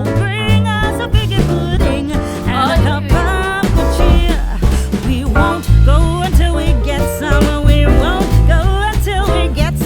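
Background music: an upbeat song with a female-sounding or high sung vocal line over guitar and a steady bass.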